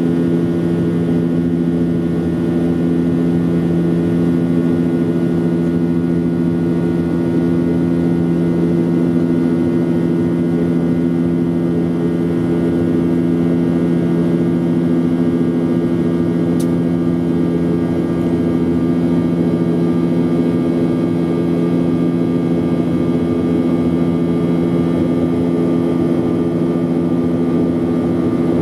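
Steady drone of a jet airliner's engines and rushing air heard inside the cabin during the climb after takeoff: an even hum holding several fixed pitches over a wash of noise.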